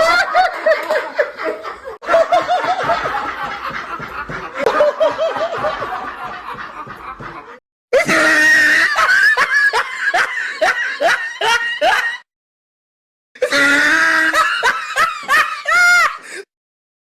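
Three separate recorded human laughs played one after another: a long laugh that fades away, then after a brief gap a second bout of laughter, and after about a second of silence a third.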